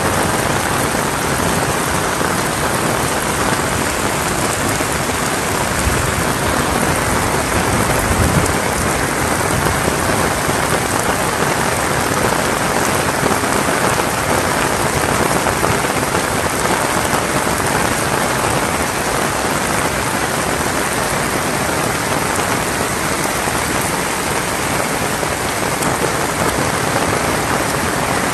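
Heavy rain falling steadily, spattering on nearby corrugated metal roofs and walls.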